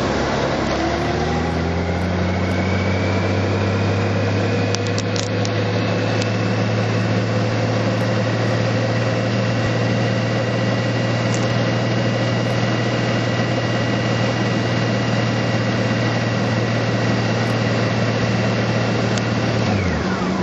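Motor vehicle engine pulling away, its pitch rising over the first few seconds, then running steadily with a faint high whine, and dropping about a second before the end as the engine eases off.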